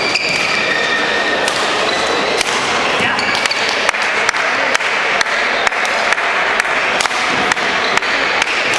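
Badminton play in a large hall: sharp racket hits on the shuttlecock and short shoe squeaks on the court, over a steady din of hall noise and distant voices. The sharp clicks come in a fairly regular series about every half second in the second half.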